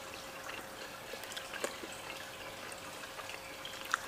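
Aquarium water trickling steadily, with a few faint clicks from hands eating off plates.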